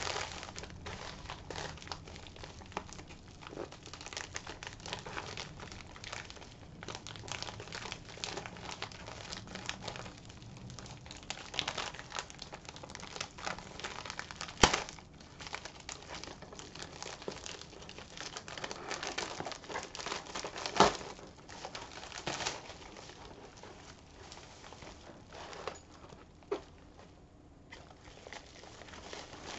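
Plastic mailer bag crinkling and rustling as it is handled and opened. There are sharp snaps of the plastic about halfway through and again about two-thirds in.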